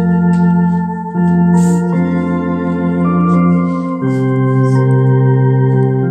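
Two-manual electronic home organ playing slow, held chords, the chord changing every second or so.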